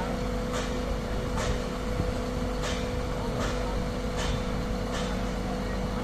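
The concrete pump truck's diesel engine runs steadily, driving the boom hydraulics as the boom unfolds, with a steady hum. A short hiss repeats roughly once a second.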